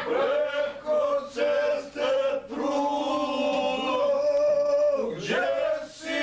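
Men singing together in long held notes, with a swoop down and back up near the end.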